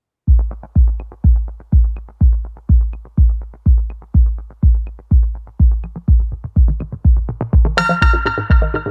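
Electronic dance music with a heavy kick drum on a steady beat, about two beats a second. About eight seconds in, bright synth chords and a cymbal crash come in over the beat.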